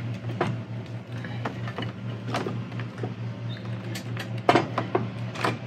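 Scattered knocks and clicks as a Badlands ZXR 12000 winch is set and shifted on its steel mounting plate, over a steady low hum.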